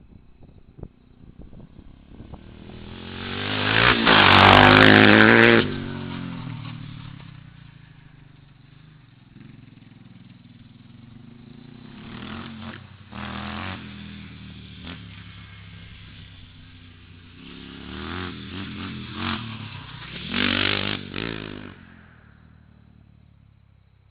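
Yamaha Warrior quad's single-cylinder four-stroke engine running through an FMF PowerCore 4 exhaust, revving up and dropping off as it is ridden. It is loudest about four to five seconds in and again around twenty seconds in, then fades away near the end.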